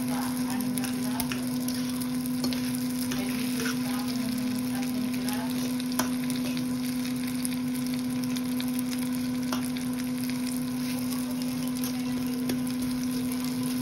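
Egg, tomato and cilantro sizzling in a skillet while a metal fork stirs and pushes them about, with a couple of sharp taps of the fork on the pan. A steady low hum runs underneath.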